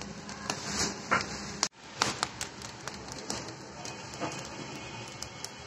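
Wood fire crackling in a clay stove, irregular sharp pops over a steady hiss. The sound drops out for an instant a little under two seconds in.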